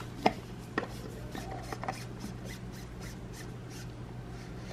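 Clear acrylic reservoir tube of a Bitspower D5 upgrade kit being screwed by hand into the pump top: a few light clicks, then a run of soft rubbing strokes as the threads turn, fading out past the middle, over a steady low hum.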